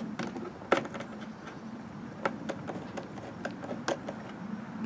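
Worm-drive hose clamp being tightened with a slotted screwdriver on a rubber fuel line, giving irregular small clicks as the screw turns and takes up the band.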